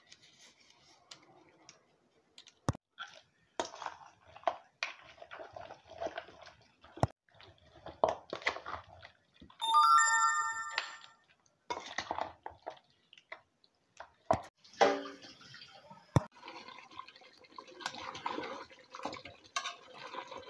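Raw beef, potatoes and spice paste being mixed by hand in a steel pot, with scattered clicks and knocks against the pot. About ten seconds in, a steady tone at several pitches sounds for a little over a second, louder than the mixing.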